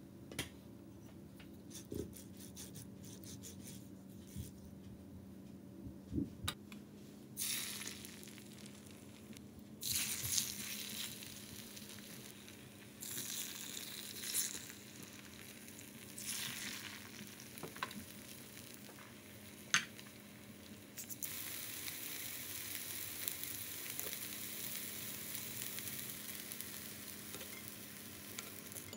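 Beef slices coated in glutinous rice flour and dipped in egg (yukjeon) frying in oil on a hot grill pan. The sizzle comes and goes as pieces are laid in, with a few light taps and clicks, then runs steadily over the last third.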